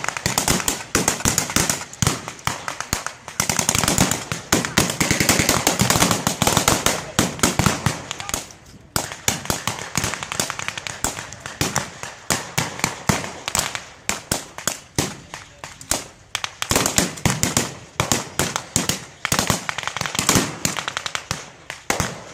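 Blank small-arms fire in a staged battle: many rifles firing at once, overlapping shots crackling several times a second, thinning briefly about eight seconds in before picking up again.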